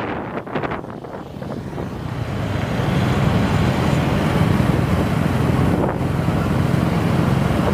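Motorcycle and scooter engines of a riding group running close by, mixed with wind buffeting the microphone, getting louder about two seconds in.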